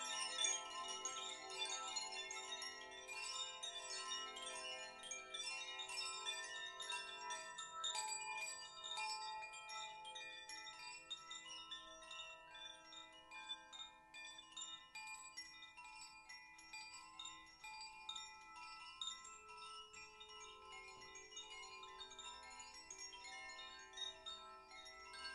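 Metal chimes ringing in many overlapping high tones, struck densely at first, then sparser and gradually fading.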